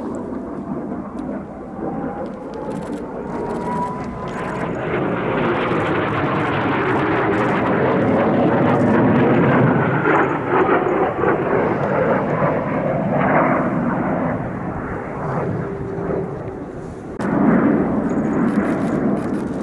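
Kawasaki T-4 twin-turbofan jets flying past, the jet roar building to its loudest about halfway through, then easing, with a second surge near the end. A whine rises in pitch over the first few seconds.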